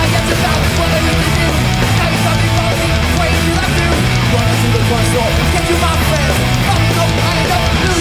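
Hardcore punk band playing live at full volume: distorted electric guitars, bass and driving drums, with no singing in this stretch.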